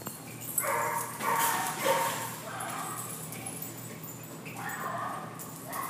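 Dogs barking and yipping: a quick run of three short calls about a second in, then two more near the end.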